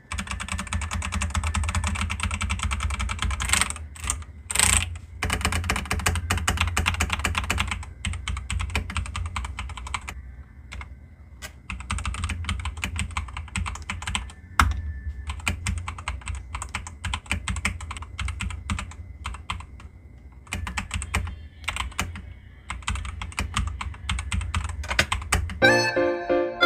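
Typing on an Attack Shark K75 transparent mechanical keyboard: fast runs of keystroke clacks with a couple of short pauses, over a steady low hum. The sound is a moderate one, neither harsh nor quiet.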